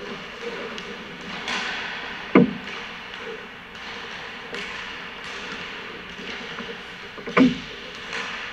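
Hockey pucks being hit on an indoor ice rink: two sharp knocks about five seconds apart, each with a short low ringing after it, over the scraping hiss of skates on the ice.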